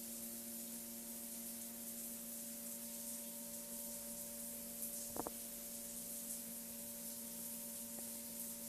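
Faint steady electrical hum of several tones over a background hiss, with a brief tick about five seconds in.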